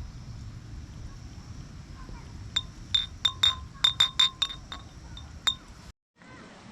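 A quick series of about ten light clinks over three seconds, each ringing briefly at the same pitches, over a low steady rumble.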